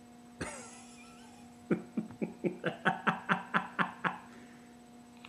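A sharp click about half a second in, then a burst of rhythmic laughter: about a dozen quick "ha" pulses over two seconds. A steady low hum runs underneath.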